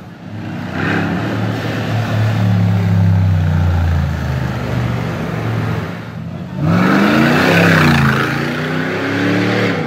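Mansory-tuned Mercedes G500 V8 running on the move with a loud exhaust note, steady at first. After a short break, it revs up and eases off twice as the G-Class accelerates past.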